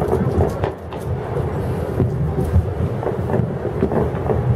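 Distant fireworks booming over a city, a continuous low rumble of many overlapping reports with a few sharper pops.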